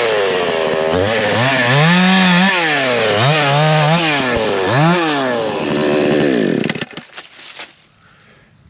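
Coocheer 62cc two-stroke gas chainsaw cutting wood, its engine pitch rising and falling several times as the throttle is worked. About two-thirds of the way through it winds down and stops, with a few knocks just after.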